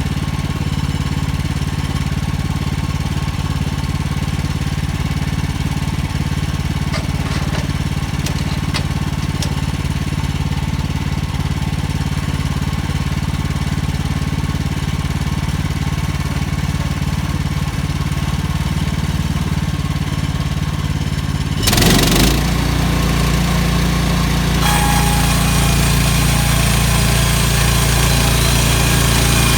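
Gas engine of an HM130 Max portable band sawmill running steadily at idle, then throttled up about 22 seconds in. A steady higher whine joins about three seconds later as the band blade runs.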